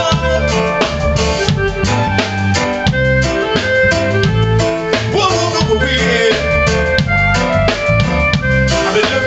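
Live band playing: a male singer over keyboard, bass guitar and a drum kit keeping a steady beat.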